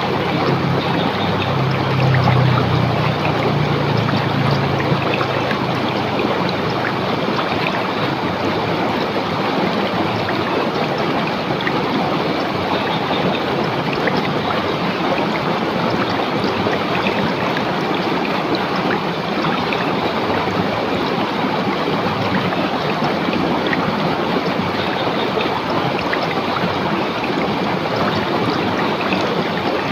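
River water rushing and splashing over rocks, a steady, even flow, with a deeper rumble underneath for the first few seconds.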